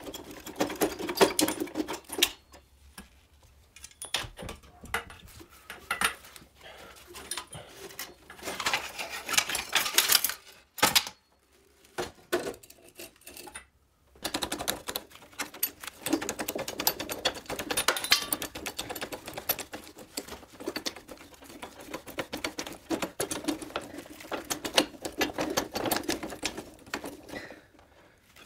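Hand tools and loose metal parts clicking and rattling while a moped's handlebar and front fork are taken apart. The clicking comes in busy runs with short pauses, goes nearly quiet for a few seconds about halfway through, then runs on almost without a break.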